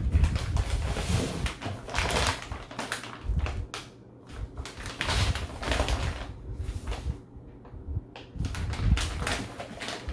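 Plastic ration packaging crinkling and rustling in irregular bursts as sealed MRE menu pouches are unpacked and handled, with dull knocks of packs bumped and set down.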